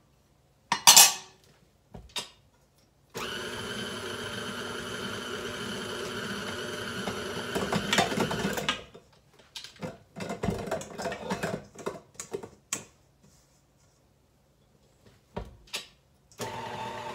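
An old KitchenAid stand mixer runs for about five seconds, mixing freshly added flour into biscotti dough, with heavy knocking toward the end as the mixer jumps on the counter, a sign its tilt head is not locked down properly. A loud clatter comes about a second in, scattered knocks follow after the motor stops, and the mixer starts again near the end.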